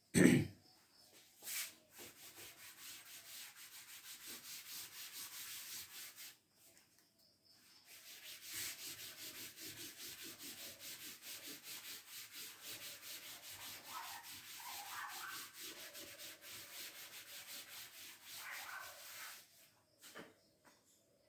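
Chalk being wiped off a blackboard with an eraser: fast rubbing strokes, about four a second, in two long runs with a short pause between them. A single thump comes right at the start.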